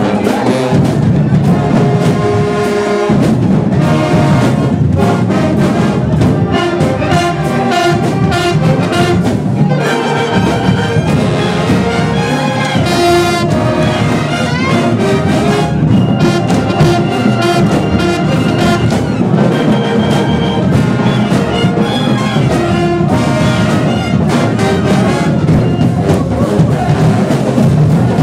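Marching band playing a loud tune, with trumpets, trombones and sousaphones carrying the melody over drums.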